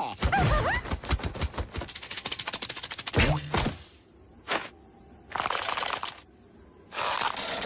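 Cartoon sound effects: a fast run of clicks or rattles for about three seconds, then a short swoop, a whoosh and two hissing bursts.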